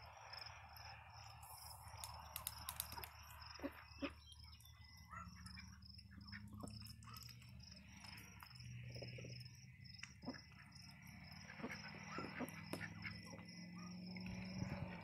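Faint insects chirping in a steady, evenly pulsing rhythm, with a few soft clicks and splashes from ducks dabbling in a shallow pool of water.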